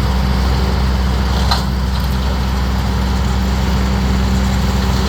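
Ford 7000 tractor's four-cylinder diesel engine running steadily, with a short sharp click about a second and a half in.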